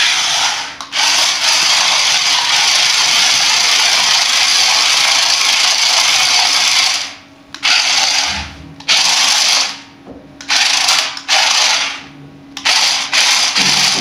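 Toy RC stunt car's electric drive motors and gearboxes running hard as it drives and spins on a concrete floor, its wheels scrubbing. The noise runs unbroken for about seven seconds, then comes in five short bursts with pauses as the throttle is worked on and off.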